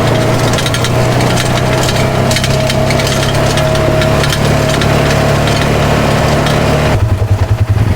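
Polaris RZR 570 side-by-side's engine running steadily under dense crackling and scraping, as of twigs and brush snapping against the vehicle on a narrow bush track. Near the end the crackling stops and the engine note turns to a pulsing throb.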